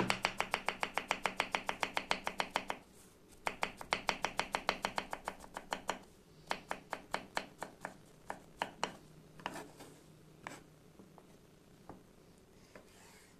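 Kitchen knife dicing peeled zucchini on a wooden cutting board: quick, even strokes of about ten a second in two runs with a short pause between, then slower, scattered cuts from about six seconds in that thin out near the end.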